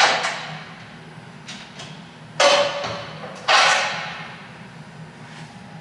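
Three heavy hammer blows on steel, one right at the start and two more about two and a half and three and a half seconds in, each ringing briefly as it dies away, as the truck's transmission crossmember and mount bolts are knocked loose.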